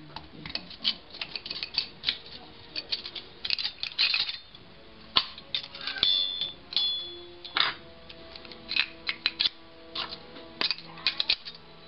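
Stainless steel cone discs of a cream separator's drum clinking and tapping against each other as they are stacked by hand onto the spindle, a quick irregular run of light clicks, with a brief metallic ring about six seconds in.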